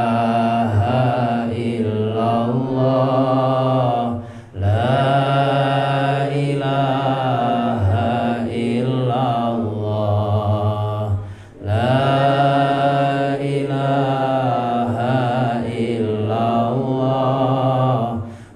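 A solo male voice chanting Islamic dhikr as a Javanese sung tembang, in long drawn-out wavering notes. He takes short breaths about four and eleven seconds in.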